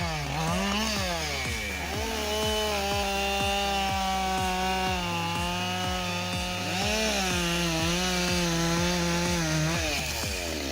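Husqvarna 572 XP two-stroke chainsaw revving up and down twice, then held at high, steady speed as it cuts through wood, with one more brief rise about seven seconds in. The engine note drops away shortly before the end.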